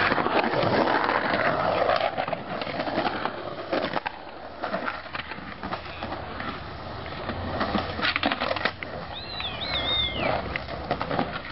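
Skateboard wheels rolling over rough concrete, a steady grinding rumble, with a few sharp clacks of the board about five and eight seconds in. A brief high warbling chirp sounds near the end.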